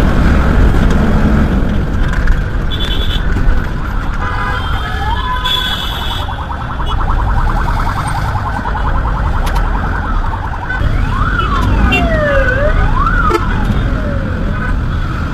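Busy road traffic with a steady rumble of passing vehicles, a couple of short horn blasts in the first half, and an emergency-vehicle siren wailing up and down, loudest in the second half.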